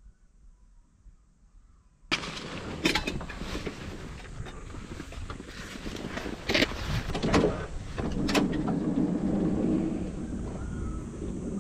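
Camping gear being unloaded from a minivan's open sliding side door: after about two seconds of near silence, handling noise as a backpack is lifted and shouldered, with several sharp knocks and bumps, then a cooler box picked up.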